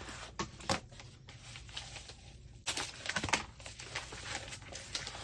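Plastic packaging and cutting mats handled: crinkling and rustling with scattered light clicks and taps, busier about halfway through.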